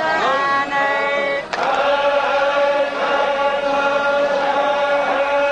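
Zikri chogan devotional chanting: voices hold a long chanted note in unison. About a second and a half in there is a sharp break, and the voices start a new long, steady note together.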